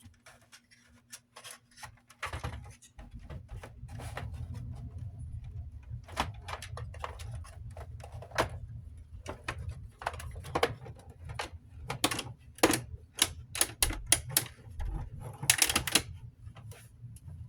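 Plastic housing parts of a rechargeable camping fan being handled and fitted back together: many irregular clicks and knocks, thickest in the second half.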